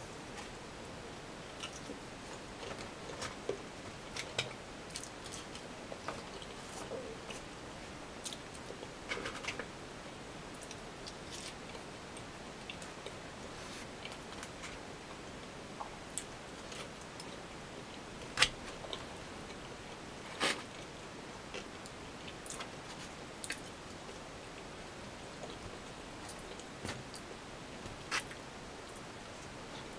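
Someone eating from a polystyrene takeaway tray with a plastic fork: scattered light clicks and scrapes of the fork against the tray, with chewing, over a steady faint hiss.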